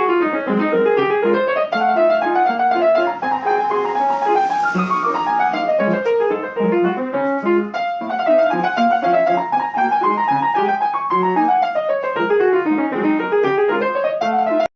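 Piano playing a flowing piece of running arpeggios that sweep up and down over repeated bass notes; it starts and cuts off abruptly.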